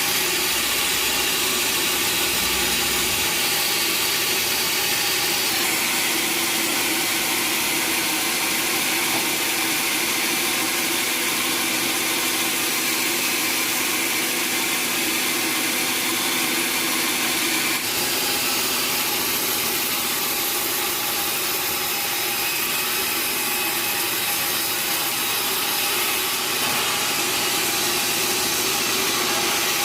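Sawmill saw running steadily through timber, a continuous even hiss of cutting and machine noise that shifts slightly about five seconds in and again just past the midpoint.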